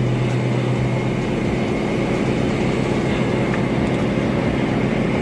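A heavy engine running steadily, a constant low drone with no clear change.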